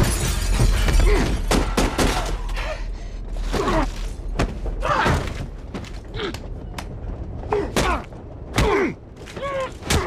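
Film sound effects of a passenger train carriage crashing and tumbling: a deep rumble over the first few seconds, then a string of heavy thuds, crashes and breaking glass, with voices crying out between the impacts.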